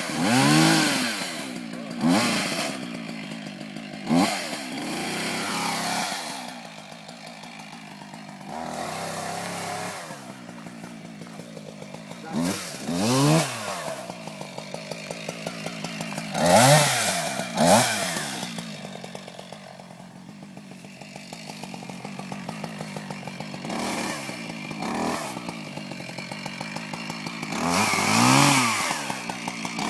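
Two-stroke chainsaw idling with a steady patter and being revved up and back down several times, the pitch swooping up and falling each time.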